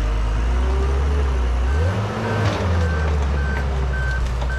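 Case 850K crawler bulldozer's diesel engine running under load, its pitch shifting about two seconds in, after which its reversing alarm starts beeping, about one and a half beeps a second, as the dozer backs up.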